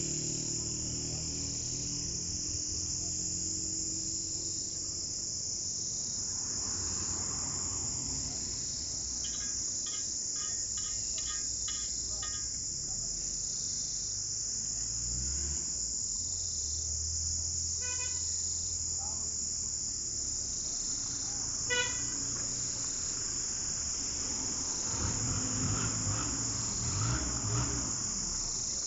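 Insects chirring steadily and high-pitched. A vehicle horn sounds a quick run of short toots in the middle, then twice more singly.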